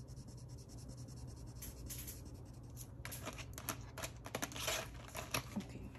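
A pen scratching on paper in quick, even back-and-forth strokes, colouring in a shape. The strokes stop after about a second and a half, and louder, irregular rustles and taps follow.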